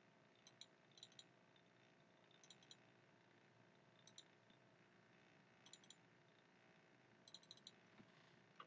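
Computer mouse buttons clicking in small groups of two or three, faint against quiet room tone.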